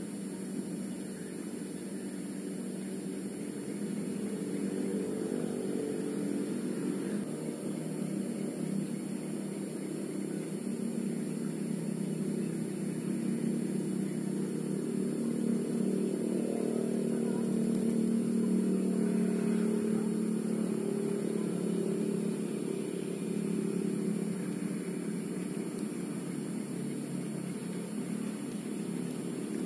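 A motor engine humming steadily in the background, growing louder over the first half and easing off again toward the end.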